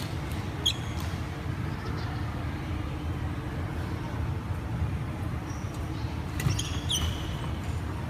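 Steady low rumble of a large sports hall during badminton play. Sneakers squeak on the wooden court with sharp hits about a second in and again near the end, where a brief sharp spike is the loudest moment.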